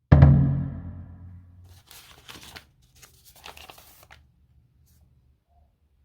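A single low, pitched musical hit that rings out and fades over about a second and a half, followed by two short bursts of rustling, like paper or packaging being handled.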